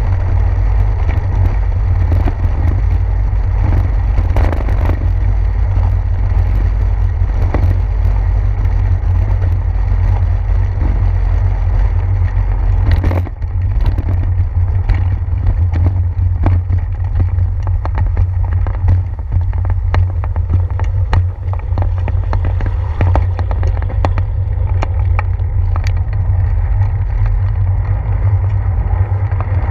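Steady low rumble of wind and road vibration from a bicycle ride on wet pavement, picked up through a handlebar-mounted action camera. Frequent small knocks and rattles from bumps in the road run through it.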